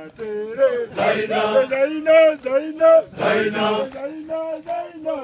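A large group of Tanzanian mountain porters singing a welcome chant, mostly men's voices: a single held voice line alternates with louder full-group passages about every two seconds, call-and-response style.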